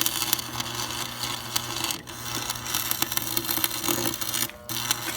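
Arc welding on a differential: a steady crackle and sizzle of the arc over a low electrical hum, breaking off briefly about two seconds in and again for a moment near the end before picking up again.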